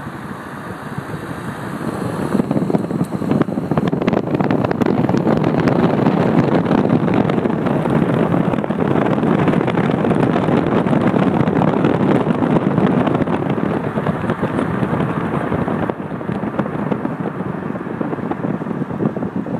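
Wind buffeting the microphone, a loud, even rushing that swells after about two seconds and eases a little near the end.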